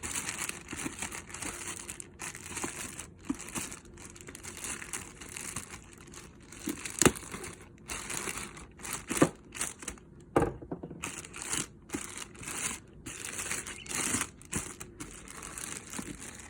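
Plastic packaging crinkling and rustling as it is pulled off a new microphone, in irregular bursts with short pauses and a few sharp knocks, the loudest about seven seconds in.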